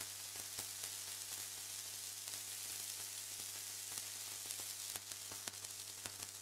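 Steady static hiss from the recording with a low constant hum underneath, dotted with faint crackles.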